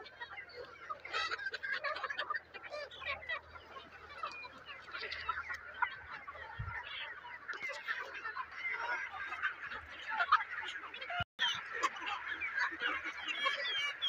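A large flock of chickens clucking and squawking all at once, a dense chatter of many overlapping short calls, broken by a brief dropout about three quarters of the way through.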